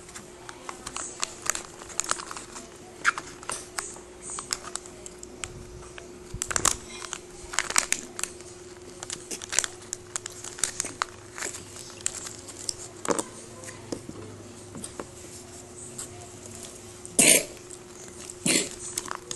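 Hands handling a Kinder Joy egg's plastic toy capsule and its small plastic toy pieces: scattered clicks, taps and crinkles over a faint steady hum, with two louder bursts near the end.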